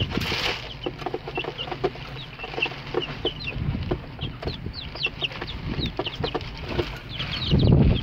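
Broiler chicks peeping: many short, high cheeps, each falling in pitch, scattered throughout. A louder low rustle swells near the end.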